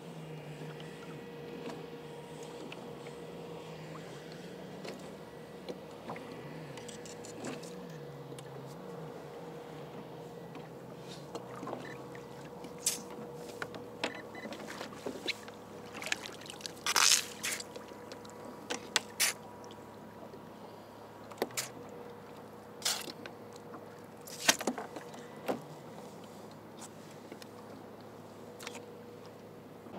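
Water splashing and trickling around a kayak, with a run of sharp knocks and splashes in the middle, the loudest about halfway through, over a faint steady hum.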